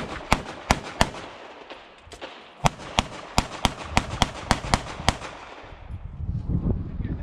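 Rapid handgun fire on a practical-shooting stage: four quick shots, a pause of about a second and a half, then a steady string of about nine more at roughly three a second, stopping about five seconds in.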